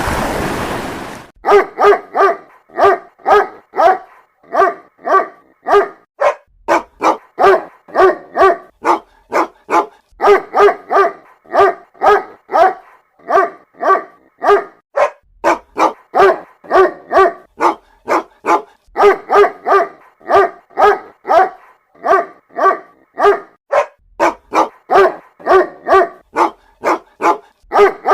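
A mother dog giving short, repeated calling barks to her puppies, about two a second, in runs broken by brief pauses. A loud burst of hiss fills roughly the first second.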